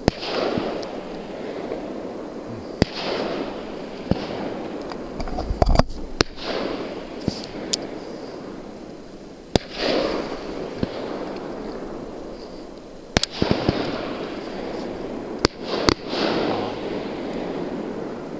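Fireworks going off: a string of sharp cracks a few seconds apart, some in quick pairs, each followed by a rolling rumble lasting about a second.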